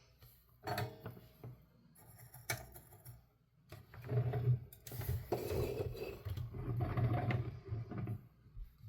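Handling of a plastic toy battery compartment and its metal terminals: a few sharp clicks and knocks, then about four seconds of denser rubbing and scraping with a low hum underneath, stopping near the end.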